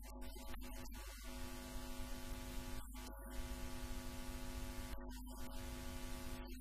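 Low, steady hum made of several unchanging tones, over a bed of hiss, with no speech.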